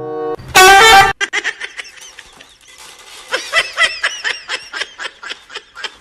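A person laughing in rapid short bursts, giggling and snickering, after a loud, short high-pitched sound about half a second in.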